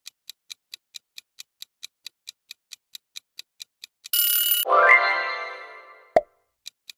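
Quiz-timer sound effects: a clock ticking about four to five times a second, cut off about four seconds in by a short buzzer tone for time up. The buzzer is followed by a ringing chime that sweeps up in pitch and fades, then a sharp click, and the ticking starts again near the end.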